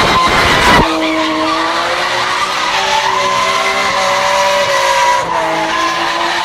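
Car spinning with its rear wheels: the engine is held at high revs and the spinning rear tyres squeal. A harsh rush of noise for about the first second gives way to a steadier, slightly wavering squeal that breaks briefly about five seconds in.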